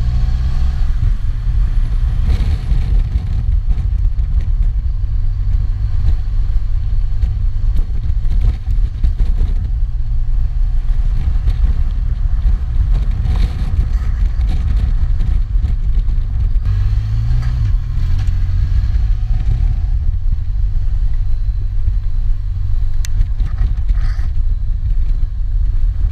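Honda Crosstourer's V4 engine running on the move under heavy wind rumble, picked up by a GoPro's built-in microphone. The engine pitch rises briefly a little past halfway.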